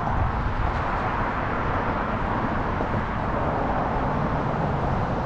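Steady traffic noise from cars on a multi-lane road alongside, an even rush with no single vehicle or event standing out.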